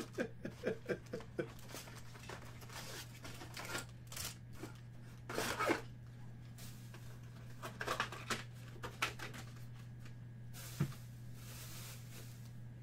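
Foil-wrapped Select basketball card packs and their box rustling and crinkling as they are handled and stacked, in short bursts with pauses between. The loudest rustle comes about five and a half seconds in, and a steady low hum runs underneath.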